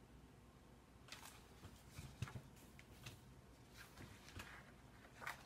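Near silence broken by faint, short rustles and scrapes from about a second in: a picture book being handled, paper and hands moving.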